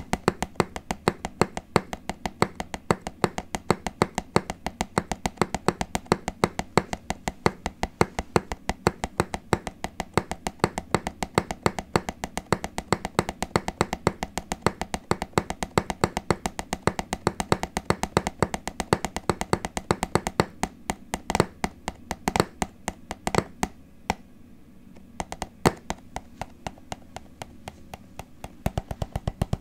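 Fast rhythmic tapping with the fingers on a hard object, several taps a second. Near the end it slows to a few louder single taps, pauses briefly, then picks up again.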